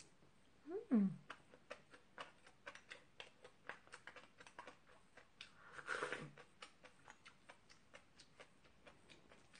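Close-miked mukbang chewing of octopus: a run of soft wet clicks and smacks from the mouth, several a second, with a short falling hum about a second in and another brief murmur around two-thirds of the way through.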